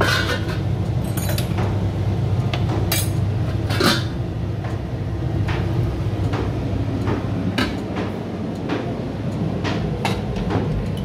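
A utensil clinking and knocking against a cooking pot, several scattered strikes a second or two apart, over a steady low rumble.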